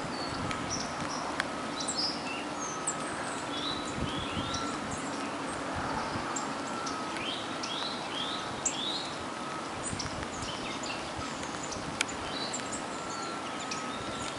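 Several songbirds calling, a stream of short high chirps and quick downward-sliding notes, over a steady hiss of rain.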